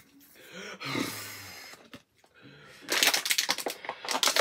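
A long, breathy, pained groan from someone whose mouth is burning from an extremely hot chili chip, then, about three seconds in, rapid crackling of a thin plastic water bottle crumpling in the hand as he drinks from it.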